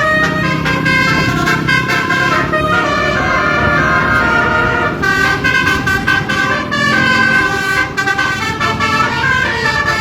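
Telolet musical bus horn (basuri) playing a tune: a loud run of horn notes that step from pitch to pitch, several tones sounding together, over the bus's low engine rumble.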